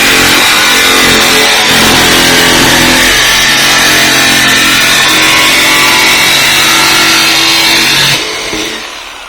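TackLife jigsaw cutting through the steel lid of a 55-gallon drum: a loud, steady motor-and-blade sound whose pitch shifts a few times. It is switched off about eight seconds in and winds down.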